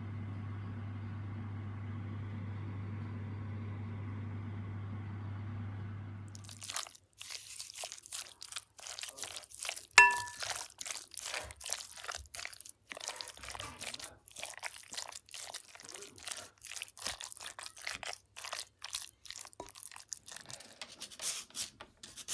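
Food-prep sounds: irregular clicks, knocks and scrapes of a utensil working in a bowl and on a cutting board, with one sharp ringing clink about ten seconds in. Before that, a steady low hum runs for about six seconds and stops abruptly.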